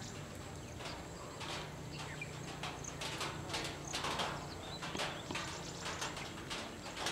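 Irregular clicking taps, one to three a second, loudest about four seconds in, with a few faint high chirps.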